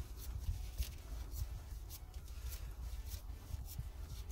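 Gloved hands screwing a new oil filter onto its mount by hand: a string of short scratchy rubs of glove against the filter can, roughly two a second, over a low rumble.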